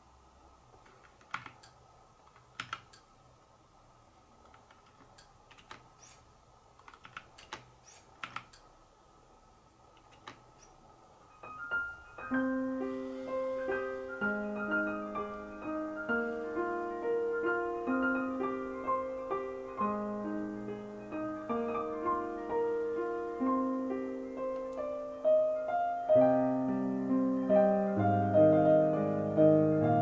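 Scattered key presses on a Keychron C1 mechanical keyboard, a dozen or so clicks over the first ten seconds. About twelve seconds in, piano music starts playing over a speaker and goes on, growing louder near the end.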